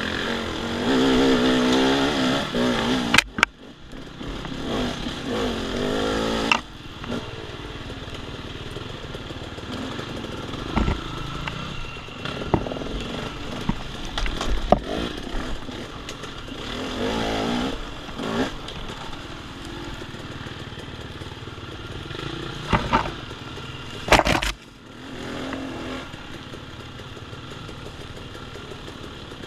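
Dirt bike engine on a woods trail, revving up and dropping back as the throttle opens and closes, with a few sharp knocks and clatter along the way.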